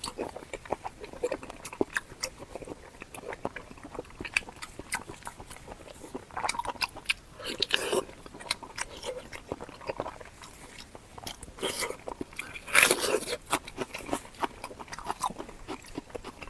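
Close-up eating sounds: biting and chewing with many short clicks and crunches, loudest in bursts about halfway through and again about three-quarters of the way through.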